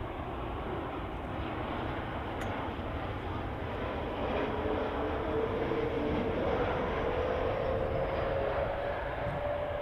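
Boeing 737 airliner passing low on landing approach: a steady jet engine rush that grows louder about four seconds in, with an engine whine that slowly rises in pitch.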